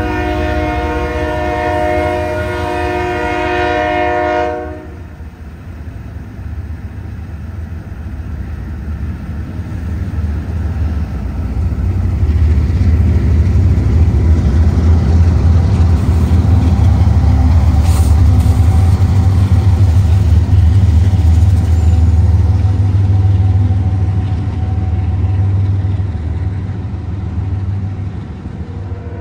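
Diesel locomotive air horn sounding a chord of several tones for about five seconds, cutting off abruptly. Then the low rumble of a freight train's Canadian Pacific diesel locomotives builds and stays loud through the middle as they pass, easing off near the end as the intermodal cars roll by.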